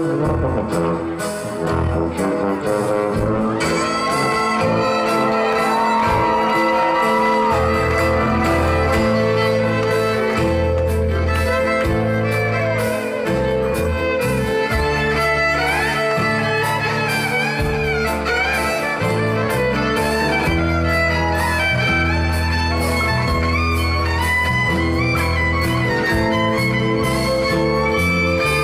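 Live band playing an instrumental passage: a fiddle melody over a tuba bass line and a drum kit, with cymbals coming in a few seconds in.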